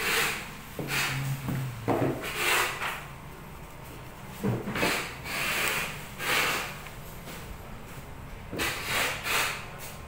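Handling noise from a Makita JS1602 electric metal shear being picked up and turned over in the hand: about ten short, irregular scraping and rubbing noises. The shear's motor is not running.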